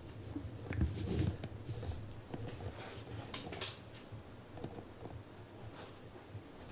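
Soft thumps about a second in, then scattered light clicks and taps: a cat moving about and playing with a small plastic toy on a wooden floor.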